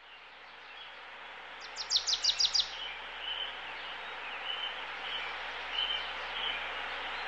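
Birds chirping over a steady background hiss that fades in: a quick run of about six sharp chirps about two seconds in, then scattered short chirps.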